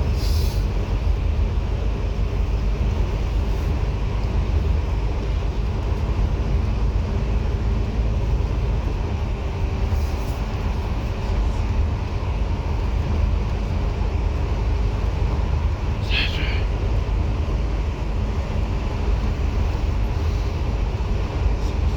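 Steady low rumble of a bus's engine and road noise heard from inside the moving bus, with a brief high-pitched squeak or rattle about sixteen seconds in.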